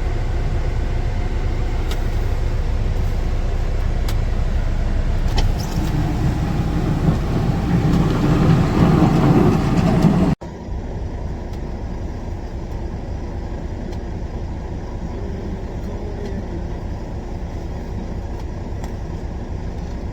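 Vehicle driving: a steady engine and road rumble that grows louder toward the middle. About ten seconds in it cuts off abruptly and resumes as a quieter, even rumble.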